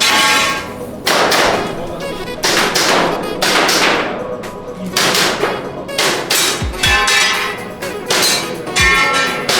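A string of irregular sharp shots from an airsoft gas pistol, some followed by a ringing metallic clang of steel targets being hit. Background music with a deep falling kick drum plays underneath.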